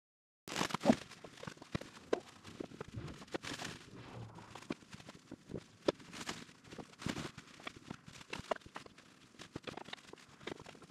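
Handling and movement noise of a person working: irregular clicks, knocks and rustles as tools and materials are picked up and put down at a cluttered workbench, mixed with footsteps. It starts about half a second in, and the loudest knock comes about a second in.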